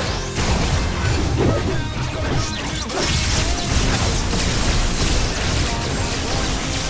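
Background action music layered with dense fight sound effects: repeated crashes, hits and whooshes.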